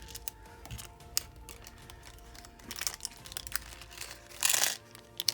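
Small plastic packaging bags crinkling as they are handled, with scattered light clicks and taps, loudest in a short burst of crinkling about four and a half seconds in.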